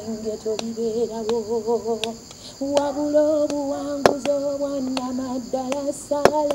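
A woman singing a gospel song unaccompanied, holding long notes with a wavering vibrato. She pauses briefly about two seconds in and comes back on higher notes.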